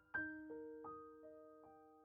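Gentle background piano music: soft single notes and chords struck a few times a second, each ringing on and fading.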